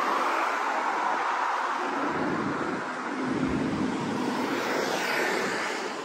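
Road traffic passing on a multi-lane city road: a steady rush of car tyres and engines that swells as cars go by.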